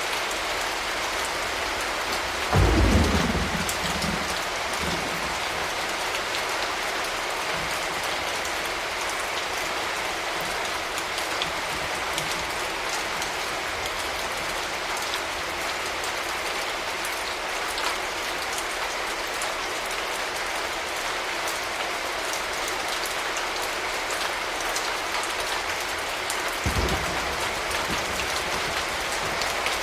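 Steady rain falling, with a loud thunderclap about three seconds in that rumbles away over a couple of seconds, and a second, shorter roll of thunder near the end.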